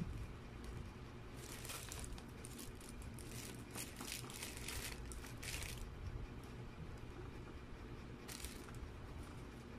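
Thin plastic food bag crinkling as hands handle a wrapped footlong, in a few bursts: a short one about a second and a half in, a longer spell in the middle, and a brief one near the end.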